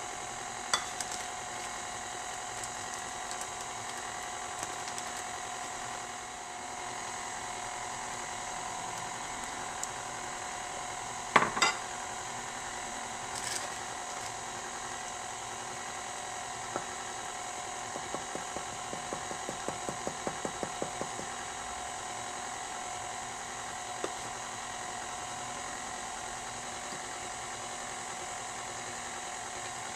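KitchenAid stand mixer's motor running steadily, its flat beater churning thick pound cake batter in the steel bowl. A loud sharp knock comes a little over a third of the way in, and a quick run of light ticks follows later.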